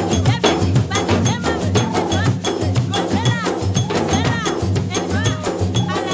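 Mauritian séga music: ravanne frame drums and other percussion keep a fast, steady beat, with a bright metallic ringing stroke on the beat.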